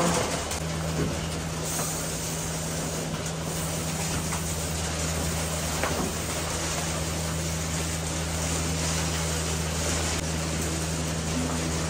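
Milking parlour machinery running: a steady low hum with a constant hiss from the milking system.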